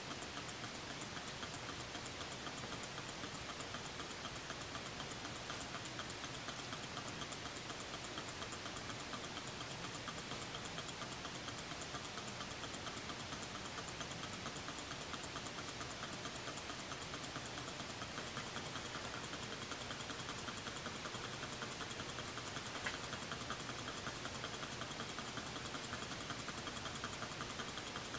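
Kontax KS90 low-temperature-differential Stirling engine running steadily on the heat of a cup of hot water, with an even, light, rapid ticking over a faint hiss.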